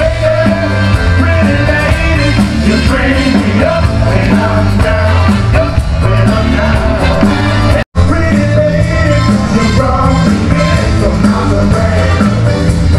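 A live band plays an upbeat rock song with a lead singer over a heavy bass, coming through a large outdoor concert sound system. The sound drops out for a split second about eight seconds in.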